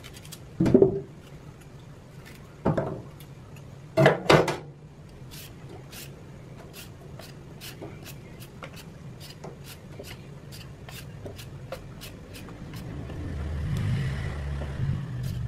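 Peeler scraping the skin off a white radish (daikon) in quick, regular strokes, about two or three a second, after a few sharp knocks in the first seconds. A low steady hum runs underneath, and the noise grows near the end.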